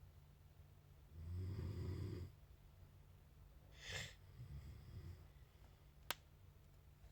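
A sleeping person snoring: one low, rattling snore about a second in, lasting just over a second. A short breathy snort follows around four seconds in, then a single sharp click near the end, over a faint steady low hum.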